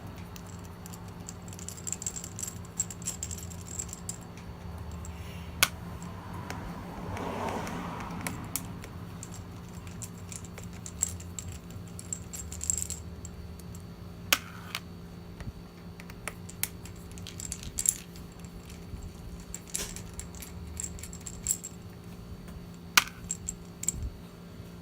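Small metal clicks and clinks of a Torx screwdriver working the T8 screws out of the iMac's LCD mounting and the screws being handled, scattered irregularly over a steady low hum.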